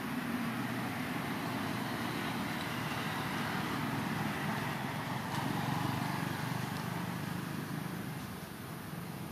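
Steady outdoor background noise: a low rumble with a hiss over it.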